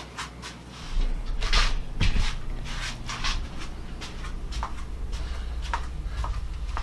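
Handheld camera being carried on foot: a low handling rumble with irregular soft footsteps and scuffs.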